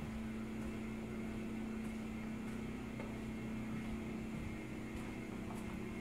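A steady low mechanical hum, an engine or motor running evenly without change.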